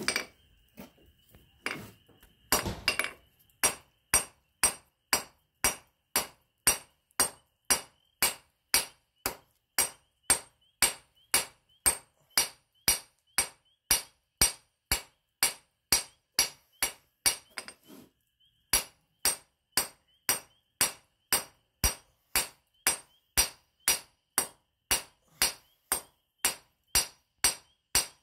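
Steady blacksmith hammering: a 1 kg engineer's hammer striking hot steel bar on an anvil at a little over two blows a second, each blow with a bright metallic ring. After a few scattered knocks at the start the rhythm settles in, with one brief pause about two-thirds of the way through.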